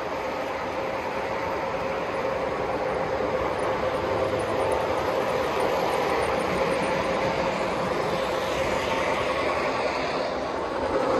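Three-rail O gauge model train running on its track: a steady rumble of wheels and motor with a faint hum, growing a little louder over the first few seconds.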